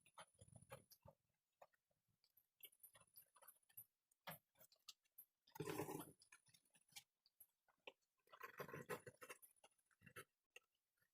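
Hand carving chisel working hardwood: quiet, irregular sharp taps and clicks as the blade cuts, with two longer scraping cuts about six and nine seconds in.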